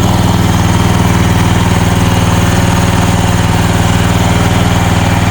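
Small engine of a CFG MX15RX mini excavator running steadily at a constant speed, loud and close, with a fast, even pulsing.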